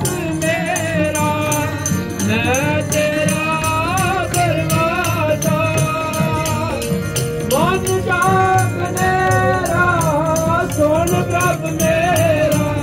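Background music: a singing voice with a steady, quick percussion beat.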